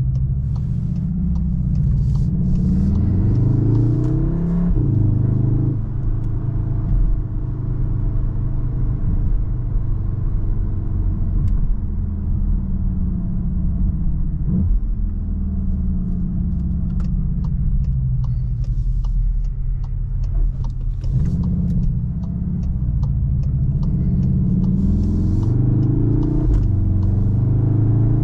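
Cupra Formentor VZ5's turbocharged five-cylinder engine, heard from inside the cabin, accelerating with rising pitch and an upshift about five seconds in, then running steadily. It accelerates again from about three-quarters of the way through, with another shift near the end.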